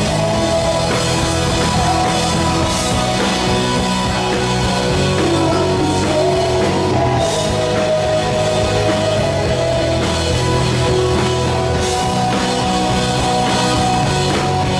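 Rock music with a drum kit and guitar, at an even loudness.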